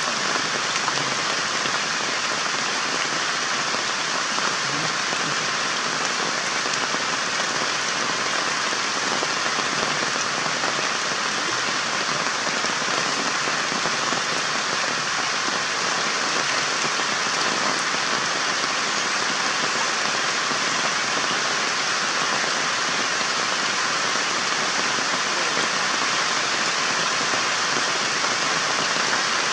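A steady, even hiss like rain, unchanging and with no distinct events standing out.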